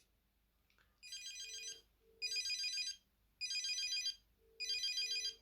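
Alcatel One Touch Easy HE1 mobile phone ringing with an incoming call: four short bursts of a fast-trilling electronic ringtone, one after another about a second apart.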